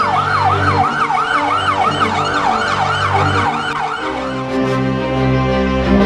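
Electronic siren sounding in rapid repeated pitch sweeps, about three a second, over background music. The siren stops about four seconds in and the music carries on.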